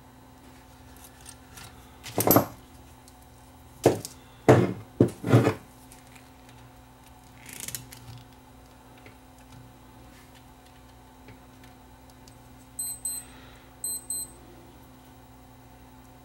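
Handling noises from hands working small capacitor leads at the workbench: about five short, sharp noises in the first half, then two pairs of short, high electronic beeps near the end.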